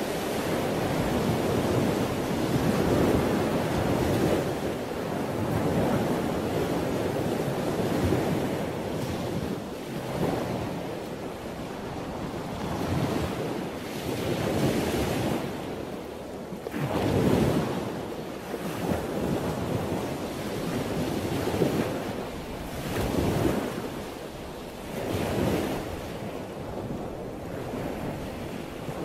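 Waves washing in and drawing back: a rushing noise that swells and falls every two to three seconds.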